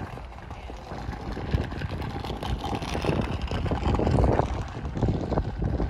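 Low, steady engine rumble of harbour traffic under the open-air waterfront ambience.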